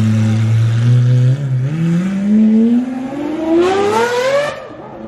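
Lamborghini Aventador SVJ's 6.5-litre V12 through a Gintani aftermarket exhaust, pulling away. The note is steady at first and dips briefly about a second and a half in. It then rises in pitch as the engine revs up for about three seconds, and cuts off sharply near the end.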